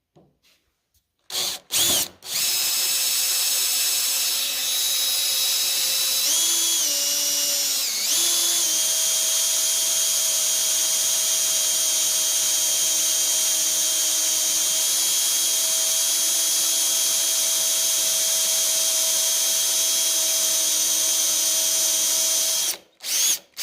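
Power drill with a cobalt bit boring into solid 1-inch round metal stock, the bit cutting well. It starts with two short trigger blips, then runs steadily for about twenty seconds, with the motor pitch dipping and recovering a couple of times in the first several seconds. It stops near the end with two more brief blips.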